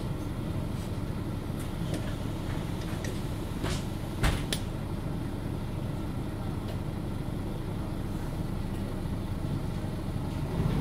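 Steady engine and running rumble of a Mercedes-Benz O530 Citaro G articulated bus, heard from inside the cabin. A sharp knock comes a little past four seconds in, followed by a smaller one just after.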